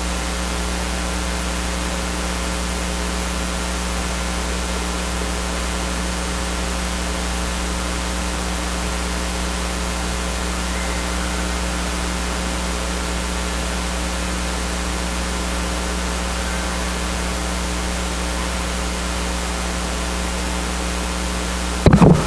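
Steady electrical mains hum with hiss, unchanging throughout.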